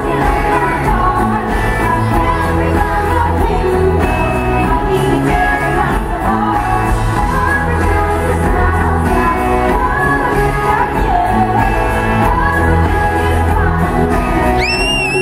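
Live pop-rock band with a female lead singer over the PA, amplified vocals over a steady drum beat. A short, high whistle rises and falls near the end.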